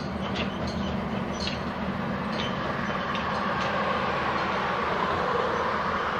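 Aircraft tow tractor's engine running steadily as it pulls a Lockheed P-3C Orion, a low rumble with a few light clicks and clanks in the first few seconds and a faint whine near the end.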